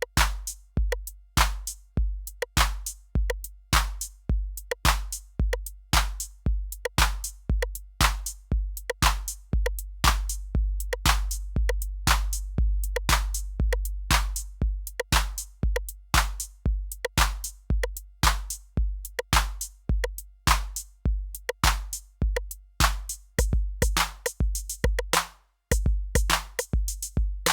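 Roland TR-8 drum machine playing a factory pattern on its TR-808 kit: a deep, booming bass drum about twice a second with short hi-hat and percussion hits over it. A quicker run of bass-drum hits comes near the end, then a brief gap.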